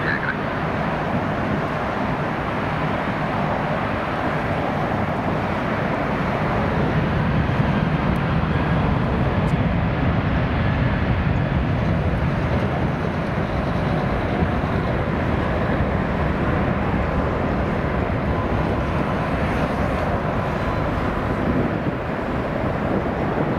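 Boeing 737-800's CFM56 jet engines running steadily as the airliner lines up and rolls on the runway, a continuous engine rumble with a faint whine that swells slightly about a third of the way in.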